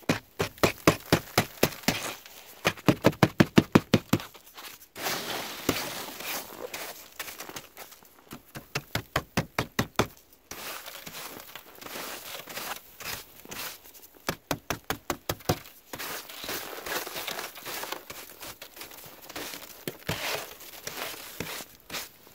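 Snow glazed with a crust of freezing rain crunching and cracking in quick runs of sharp crackles, about four or five a second, with short pauses between the runs.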